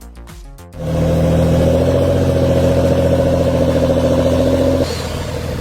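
Heavy forestry machine's engine running steadily, coming in loud about a second in after a short stretch of music; its higher tones drop away near the end and the engine sound gets a little quieter.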